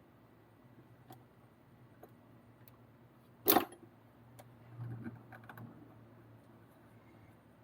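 Small parts of an RC car kit being handled and pressed together by hand: faint ticks, one sharp click about three and a half seconds in, then a short run of softer rustling and clicking about a second later.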